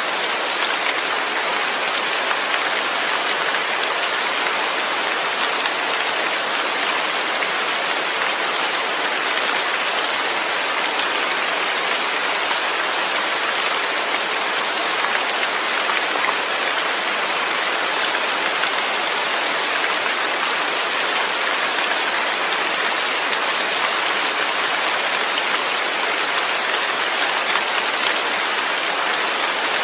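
Steady rain: an even hiss of many drops falling on surfaces, unchanging throughout.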